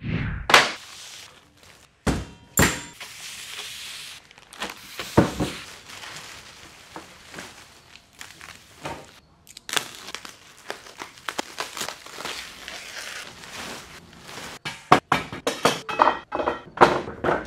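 Plastic wrapping crinkling and rustling, with scattered thunks and knocks of heavy CNC machine parts and crate wood being handled; a quick run of knocks near the end.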